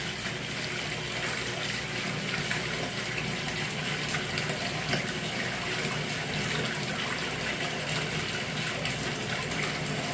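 A small 25-watt water pump running after repair, with a steady rush of water as it pumps the water out of a tub.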